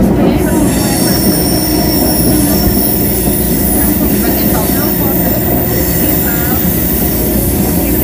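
Traction equipment of a CPTM Série 2000 electric multiple unit running: a loud, steady rumble with thin high-pitched whines over it and brief wheel squeals.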